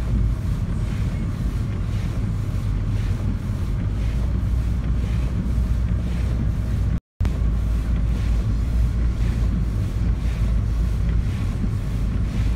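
Steady low rumble of a car driving, heard from inside the cabin, with faint regular swishes about twice a second from the windshield wipers in heavy snow. The sound cuts out for a moment about seven seconds in.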